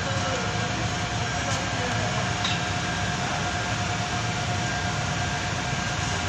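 Steady mechanical drone and hiss with a faint constant whine, unchanging throughout.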